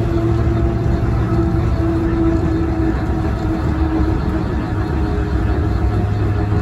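Volk's Electric Railway car running along its track: a steady low rumble of wheels on rail with a steady electric motor hum over it.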